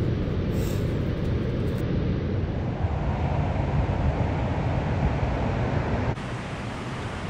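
Steady rushing noise of water pouring through the dam's spillway, mixed with wind buffeting the microphone. The level drops suddenly about six seconds in.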